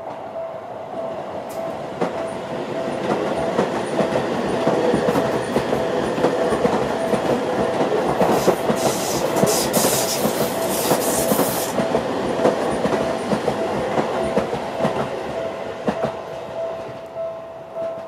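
Japanese electronic level-crossing bell in the Seibu-type tone, ringing in steady even pulses while a Seibu 001 series 'Laview' electric train passes over the crossing. The train's wheels clatter over the rail joints, and the train noise builds, rises to a hiss for a few seconds in the middle, then fades. The bell stops at the very end.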